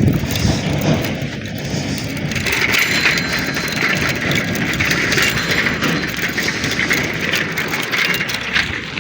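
Bicycle ridden over a rough, unpaved road: continuous tyre-on-surface and rattling noise, growing brighter about two and a half seconds in.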